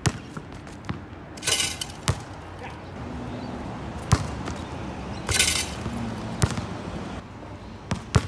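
Basketball bouncing on a hard outdoor court: several sharp bounces about two seconds apart, with a few short hissing scuffs between them.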